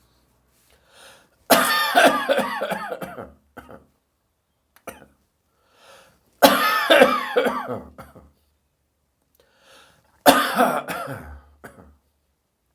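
A person's dry morning cough, in three fits, each opening with a loud hack and trailing off in a run of smaller coughs, with faint breaths between.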